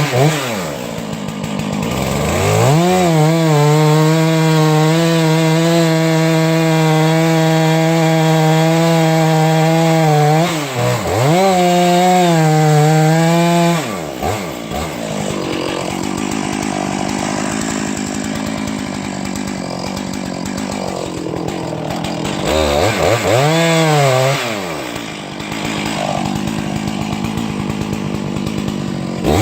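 Chainsaw revved up to full throttle and held steady for about eight seconds, dropping briefly and revving again for a few seconds, then running at a lower, rougher pitch, with one more short rev and fall near the end.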